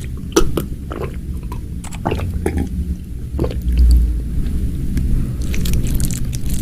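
Close-miked eating: bites and chewing with sharp, crisp crunches, several in the first half and a quick cluster near the end, over a low rumble.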